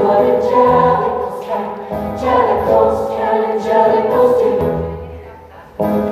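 A choir of voices singing long held notes over musical accompaniment. The music fades a little past the middle, then a new passage cuts in abruptly near the end.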